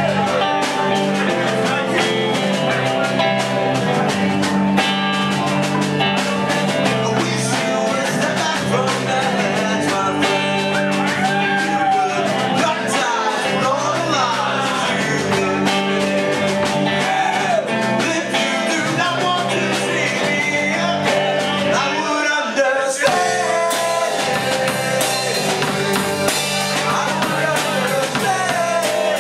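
A live rock band playing, with guitar and a singing voice over a steady beat; the bass briefly drops out about two-thirds of the way through.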